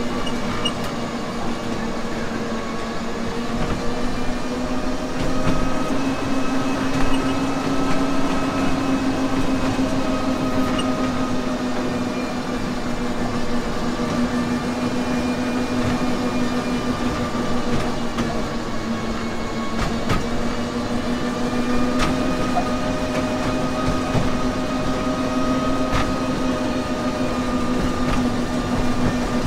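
Amusement-park train running steadily, heard from an open passenger carriage: a continuous droning hum from the locomotive that drifts slightly up and down in pitch over the rumble of the wheels, with a few sharp clicks along the way.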